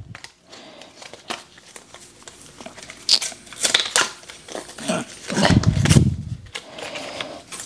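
Packaging paper and plastic wrap crinkling and rustling as a charging cable is unwrapped, with scattered light clicks of handling and a louder rustle about two-thirds of the way in.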